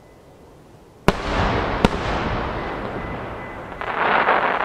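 Two 12-inch (shakudama) aerial firework shells bursting three-quarters of a second apart, each a sharp boom followed by a long rolling rumble. Near the end comes a dense crackling from another bursting shell.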